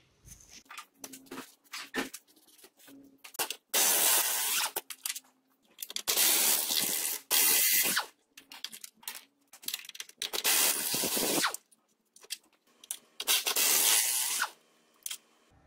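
WD-40 aerosol can spraying penetrating oil onto the steering rack's mounting bolts and nuts to free them: four hissing squirts of about one and a half to two seconds each, after a few light clicks.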